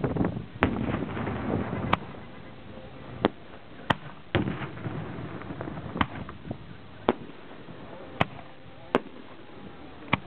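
Fireworks going off: about ten sharp bangs of bursting shells and launches at uneven spacing. The first two seconds are louder and busier.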